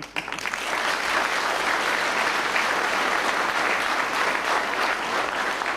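An audience applauding, breaking out all at once and holding steady.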